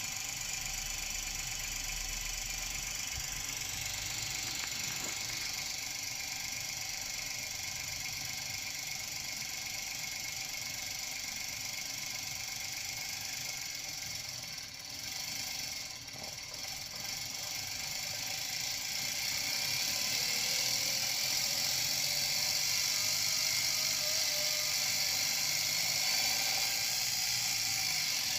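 Daihatsu KF-VET 660 cc turbocharged three-cylinder engine running with the high, tinkling 'chiri-chiri' rattle of spark knock (pinging). It gets a little louder about two-thirds of the way through.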